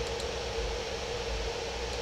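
Steady room noise: an even hiss with a constant hum underneath, and a couple of faint clicks.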